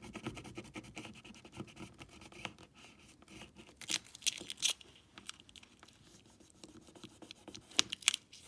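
Light scratching and rubbing on the edges of an iPod nano 6th-generation housing as old adhesive residue is cleaned away, with a few sharper scrapes about four seconds in and near the end.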